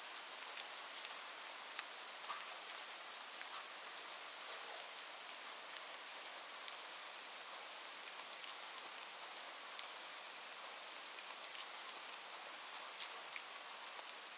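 Steady rainfall: an even hiss of rain with many separate drops ticking on a surface.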